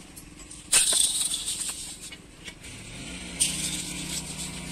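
Dark granular thermite welding mix hissing and rattling as it slides in a steel pan and is poured from one pan into another, in two spells: a sudden loud one about a second in and another from about three and a half seconds. A low steady hum comes in around the three-second mark.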